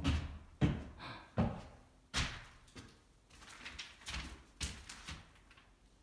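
Footsteps on a bare floor, a hard knock at each step, coming about every 0.8 s at first and then fainter and more irregular, echoing in empty drywalled rooms.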